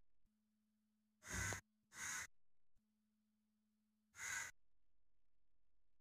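Three short, breathy puffs of air close to the microphone, the first two about half a second apart and the third about two seconds later.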